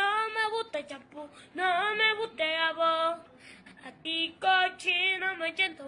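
A woman singing a song in short phrases, with wavering held notes and only faint accompaniment.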